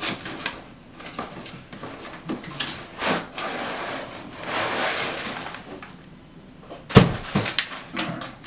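Cardboard shipping box being opened and handled by hand: flaps scraping and rustling with scattered clicks, a longer rustle around the middle, and one sharp knock about seven seconds in.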